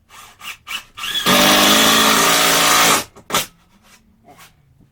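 Power drill running in one steady burst of nearly two seconds, then stopping abruptly, with a few short knocks and clicks of handling before and after.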